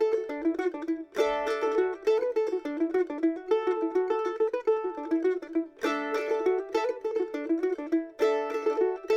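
Background music: an acoustic folk instrumental with quick plucked-string notes, a mandolin-like lead over strummed chords.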